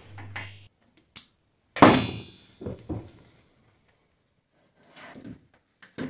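Solar cable connectors and small parts being handled and set down on a hard surface. A click about a second in, then one solid thunk with a short ringing tail just under two seconds in, followed by a few lighter knocks.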